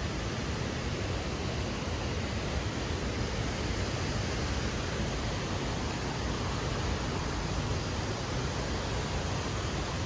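Nooksack Falls: steady, even rushing of falling water.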